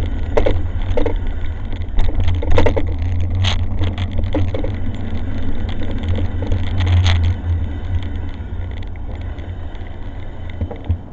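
Riding noise from an e-bike on a park path picked up by the bike-mounted camera: a steady low rumble with knocks and rattles over bumps, easing off over the last few seconds.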